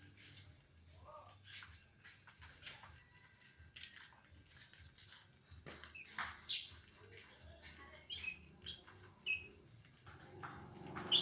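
Pet lovebird feeding, with soft clicks and scratches as it eats and short high chirps and squeaks now and then, a louder squawk near the end.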